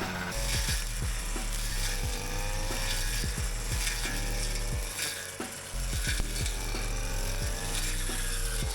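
Strimmer engine running, its whine rising and falling as it is worked through grass. Sharp clicks and knocks come through it.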